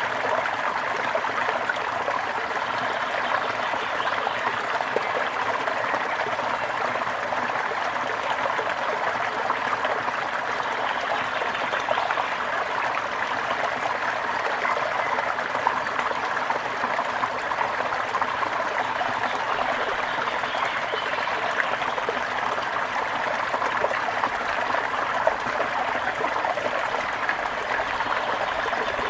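A brook flowing and trickling over stones, a steady, even babble of water.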